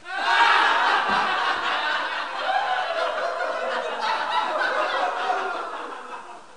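A crowd of people laughing together, starting abruptly and fading away over the last couple of seconds.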